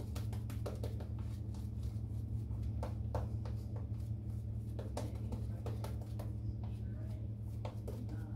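Stainless steel safety razor scraping through lathered stubble in quick, short strokes, over a steady low hum.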